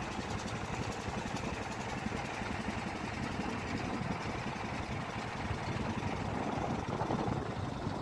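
Small motor boat (ketek) engine running steadily, a fast, even chugging with noise around it.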